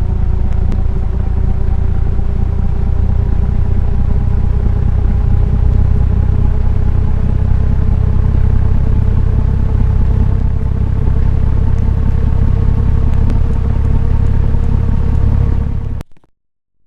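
A badly wobbling ceiling fan running: a steady, heavy low rumble with a faint motor hum that slowly rises in pitch. The sound cuts off abruptly near the end.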